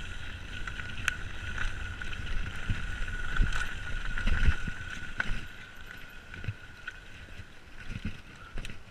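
Mountain bike ridden fast down a dirt trail, heard from a chest-mounted camera: wind rumble on the microphone and tyre noise on the dirt, with sharp knocks and rattles from bumps and a steady high hum throughout. It is loudest in the middle and quieter for the last few seconds.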